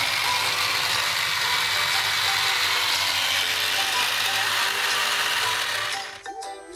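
Electric mini food chopper running steadily as its blade chops garlic and ginger, then stopping about six seconds in.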